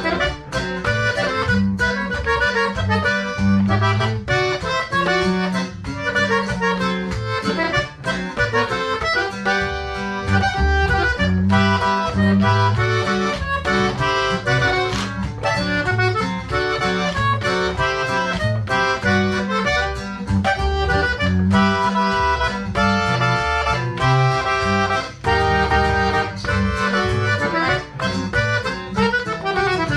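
Hohner button accordion playing a conjunto tune: a melody over a rhythmic bass accompaniment.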